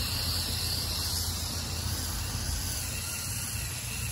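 An 18-inch five-blade push reel lawn mower's spinning reel giving a steady hissing whir as it is pushed at a run through grass, with a low rumble underneath.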